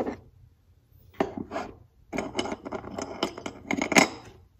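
Jewelry clinking and rattling: metal rings and beaded bracelets knocking together and on a plastic tray as they are handled. It comes in short bursts of clicks, with a longer run in the second half and a louder knock near the end.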